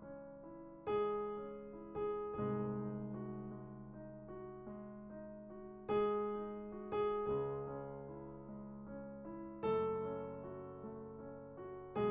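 Background piano music: slow chords struck every second or few seconds, each fading out.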